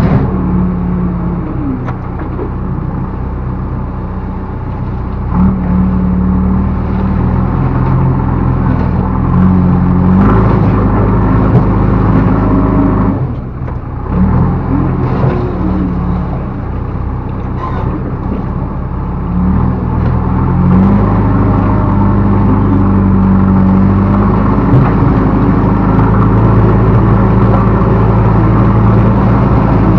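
Backhoe loader's diesel engine running and revving up and down as the machine works, with a brief drop in engine sound about thirteen seconds in.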